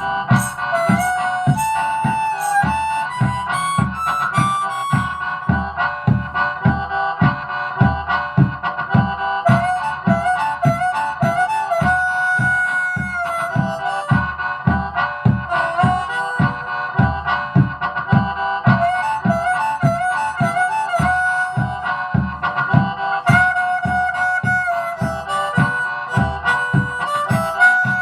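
Harmonica playing a minor-key tune, with sustained notes and short bends, over a steady low beat about twice a second.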